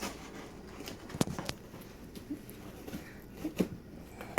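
A few separate sharp taps and clicks from handling the doll's cardboard box packaging, with a louder knock near the end.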